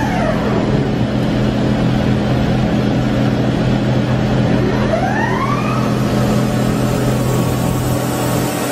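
Doosan DBC130II CNC horizontal boring mill running, a steady mechanical hum over an even machine noise. A brief tone rises and falls about five seconds in.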